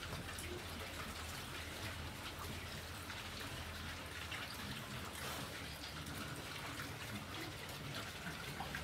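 A pen of young pigs chewing and munching chopped green vegetables off a wet floor: a dense, steady crackle of many small wet smacks and crunches, with a faint low hum underneath.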